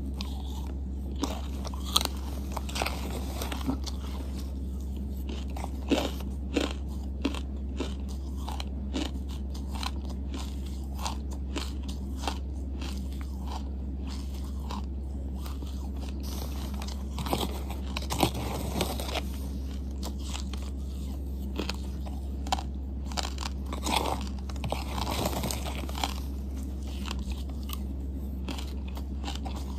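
Close-miked mouth chewing charcoal paste, with irregular sharp clicks and crunches that come thickest in two stretches past the middle. A steady low hum runs underneath.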